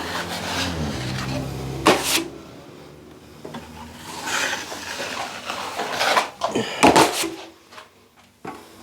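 Drywall blade working wet joint compound on a ceiling patch: a scratchy scraping, with a few sharp knocks of the blade, about two seconds in and twice near six to seven seconds.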